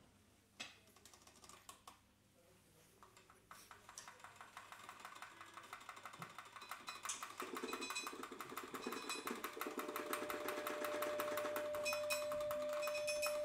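Free-improvised music opening: a few scattered clicks, then a fast, dense clatter of small percussive ticks that builds steadily in loudness. One steady held note joins about ten seconds in.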